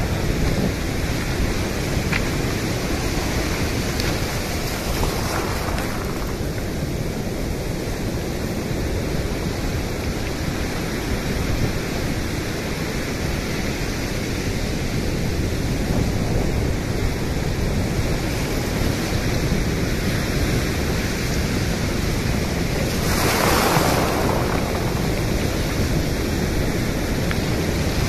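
Shallow ocean waves washing in and out over a pebble beach, water swirling and draining among the stones in a steady rush, with one louder surge of water about five seconds before the end.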